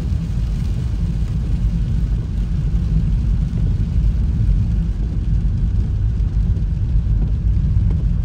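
Steady low rumble of a car driving on a wet road, heard from inside the cabin: tyre and engine noise.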